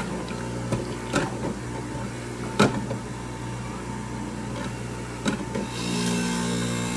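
Electric juicer motor running steadily, with several sharp knocks as apple slices are fed in; the loudest knock comes about two and a half seconds in.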